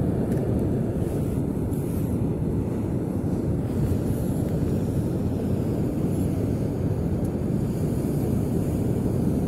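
Steady low rumble of ocean surf breaking on the beach, mixed with wind on the microphone.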